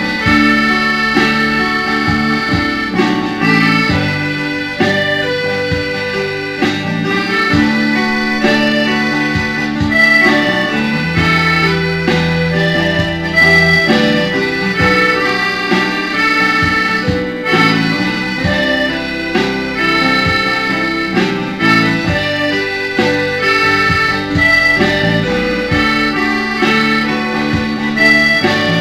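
Accordion playing a slow ballad melody in held chords and notes, over a backing of bass and guitar.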